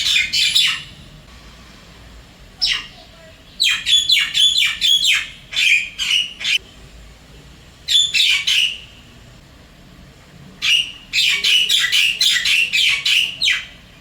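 Javan myna calling in phrases of rapid, sharp notes, several notes a second, with pauses of a second or two between phrases. The uploader takes the calls for a call to its mate.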